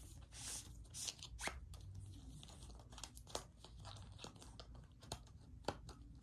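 Packaging of a watch band, a cardboard box and its inserts, being handled: faint, irregular rustling and small clicks.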